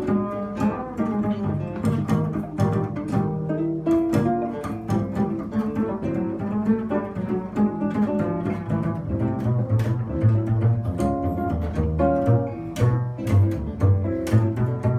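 Upright double bass played pizzicato, its low plucked notes walking under an acoustic guitar picking melody and chords, in a bass-and-guitar duo.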